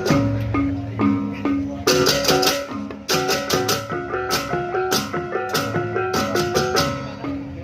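Music: a plucked-string melody in short repeating phrases over a steady percussion beat.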